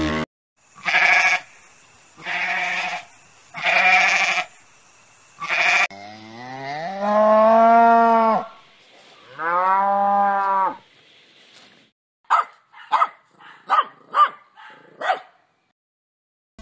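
A run of animal calls: four short hoarse buffalo calls, then two long cow moos that rise and fall in pitch, then a quick series of about seven short, high puppy yips.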